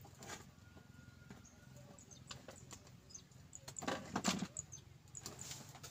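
Faint handling noise: scattered light clicks and rustles, with a louder rustle about four seconds in.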